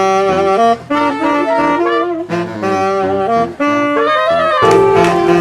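Jazzy horn music led by saxophone, playing a melodic line of short changing notes. About four and a half seconds in it gives way to a fuller, noisier passage.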